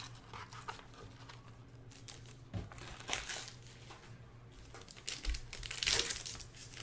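Plastic wrapper crinkling and tearing as a pack of trading cards is opened, in short bursts of crackling that grow busier near the end.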